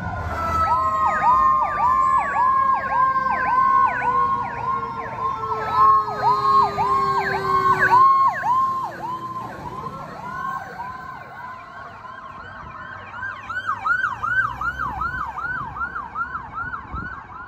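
Fire apparatus sirens passing: an electronic siren yelping about three times a second, loudest in the first half, over a second siren tone that slowly falls in pitch. About ten seconds in, another, higher yelping siren takes over, from a fire department SUV following behind.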